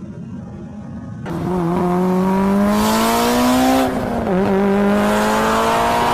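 Car engine at full throttle, heard from inside a car's cabin. After an edit about a second in, its pitch climbs steadily through one gear, drops sharply at a quick upshift about four seconds in, then climbs again.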